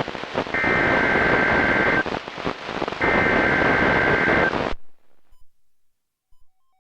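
NOAA Weather Radio broadcast received through heavy static hiss: two bursts of the SAME digital alert header, each about a second and a half long and about a second apart, the data coding that switches on receivers for a new alert. The audio cuts off about five seconds in.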